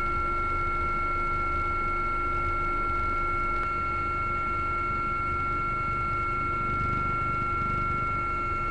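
Steady helicopter cabin noise: a high, unchanging turbine whine over a low rotor rumble.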